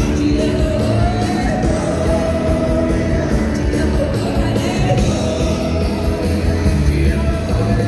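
Live rock band playing loud and steady, with singing and yells from the crowd, heard from among the standing audience.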